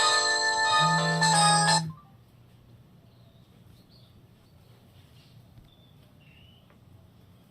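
Downloaded ringtone playing through the speaker of a Samsung GT-E2121L mobile phone for an incoming call: a bright melody of short chiming notes that cuts off abruptly about two seconds in, leaving only faint background noise.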